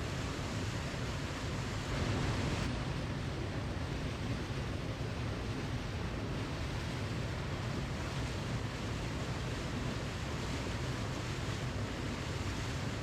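Waterfall rushing steadily in an even roar of falling water, with a slight swell about two seconds in.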